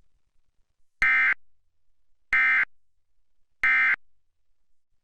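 Emergency Alert System end-of-message (EOM) signal: three short, identical buzzy bursts of SAME data tones about 1.3 seconds apart, marking the end of the alert test.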